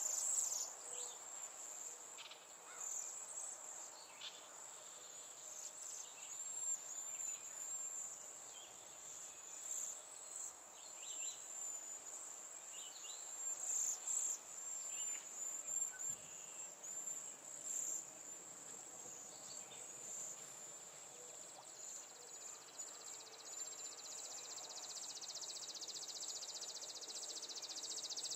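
Insects chirring steadily in a high-pitched, rapidly repeating trill, with short bird calls scattered through. About twenty-three seconds in, a wider steady buzz joins.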